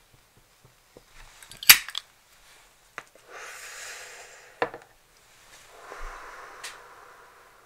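A cigarette being lit: sharp lighter clicks, one loud one about two seconds in, then two stretches of breathy hiss as the cigarette is drawn on and the smoke blown out.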